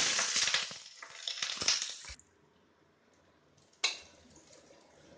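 Minced garlic sizzling in hot oil in a wok while a metal spatula stirs and scrapes it; the sizzle cuts off about two seconds in. One sharp knock near four seconds.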